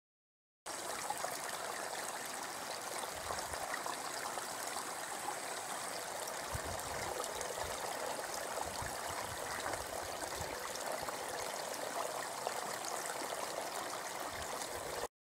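Shallow brook trickling and gurgling over a bed of rounded stones, a steady rush of flowing water that begins suddenly about half a second in and cuts off just before the end.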